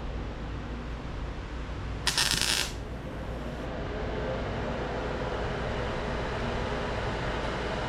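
A single short MIG tack weld, crackling for about half a second a couple of seconds in, over a steady low background hum.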